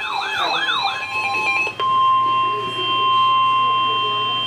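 A warbling siren sound, cycling up and down in pitch about three times a second, stops just under two seconds in. A steady, high-pitched alert tone follows and is held almost to the end. It is the Emergency Alert System attention tone that opens a severe thunderstorm warning broadcast.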